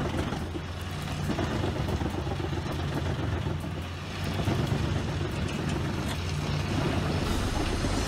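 Doppstadt DH 910 Super Panther wood chipper running steadily as it chips logs, its engine droning under a rushing noise, with a brief drop in level about halfway through.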